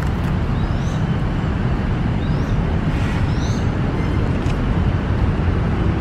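Steady low rumble of city traffic, with a few short rising chirps from small birds scattered through it.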